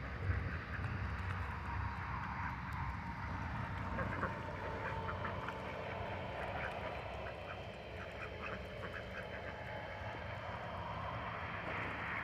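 A flock of white domestic ducks quacking in short, scattered calls as they scramble for food, over a steady low rumble.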